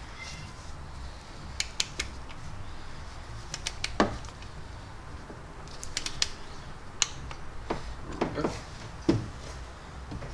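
A torque wrench clicking and knocking as bolts are tightened to 9 foot-pounds: a dozen or so scattered sharp metal clicks, some in quick pairs.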